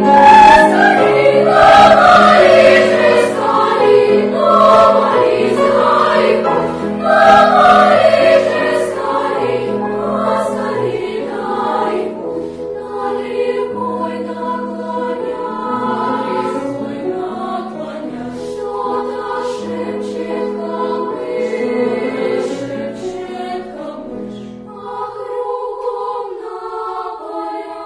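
Children's choir singing in several parts, loud at first and growing softer; the low notes drop out near the end, leaving the upper voices holding chords.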